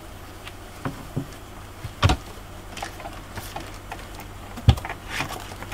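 Scattered light clicks and knocks, with two louder thumps about two seconds in and near the end, over a steady low hum.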